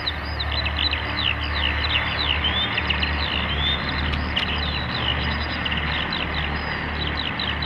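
A dense run of short, high chirps, each falling in pitch, several a second, over a steady low hum.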